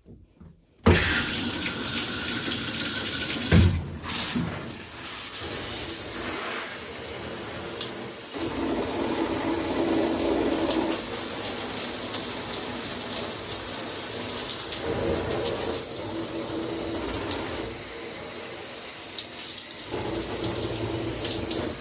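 Handheld shower head turned on about a second in, then water spraying with a steady rushing hiss. There is a single knock a few seconds in.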